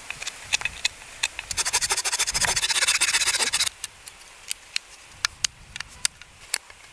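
A blade cutting into a green wooden stick. For about two seconds there are rapid scraping strokes. After that come single sharp clicks as the knife cuts chips out of notches in the stick.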